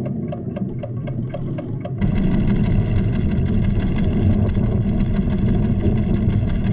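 Cartoon sound effects of a volcano stirring: a quick mechanical ticking, about four ticks a second, over a low rumble, then about two seconds in a loud deep rumbling of the earth tremor sets in, with held orchestral chords over it.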